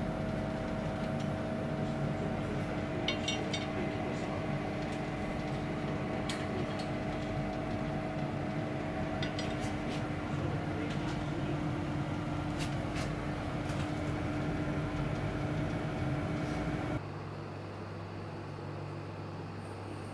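Steady mechanical hum of a kitchen appliance, with a few light clicks and taps scattered through it. Near the end it drops suddenly to a quieter, lower hum.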